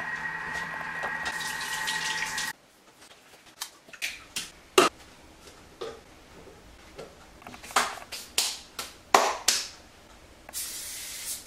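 A steady hum with held tones that cuts off abruptly about two and a half seconds in. Then kitchen work: scattered sharp clicks and knocks of containers and utensils on the counter, with liquid poured into a Thermomix bowl, and a soft hiss starting near the end.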